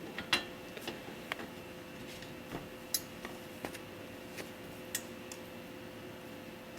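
Light, scattered metal clicks and clinks as steel tricycle frame parts and bolts are handled and fitted together, about eight in all, over a faint steady hum.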